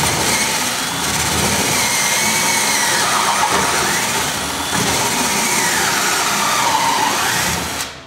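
Cordless drill boring into timber with a large auger bit. The motor runs steadily under load, its whine dipping and rising in pitch as the bit bites. It stops suddenly near the end.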